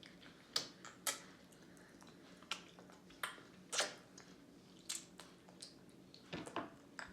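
Irregular small wet smacks and clicks of babies eating finger food: lips and mouths smacking as they chew, about a dozen sharp sounds in all.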